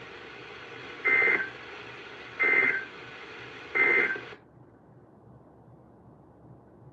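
Emergency Alert System end-of-message: three short bursts of the warbling two-tone SAME data signal, about 1.3 seconds apart, over the hiss of weather radio reception. After the third burst the hiss drops to a fainter level.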